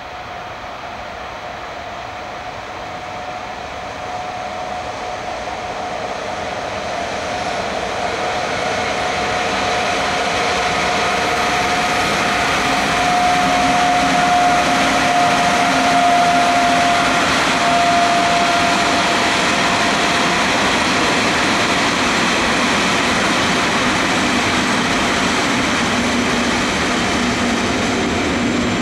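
Class 189 electric locomotive hauling a container freight train, approaching and passing, growing louder over the first dozen seconds. A steady high whine drops slightly in pitch as the locomotive goes by. It is followed by the steady rolling noise of the container wagons passing.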